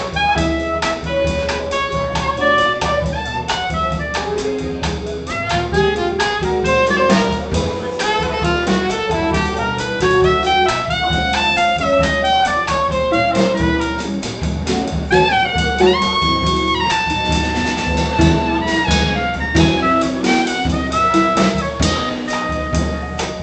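Live small-group jazz: soprano saxophone playing a busy improvised melody line over upright bass and drum kit, rising into one long held note a little past the middle.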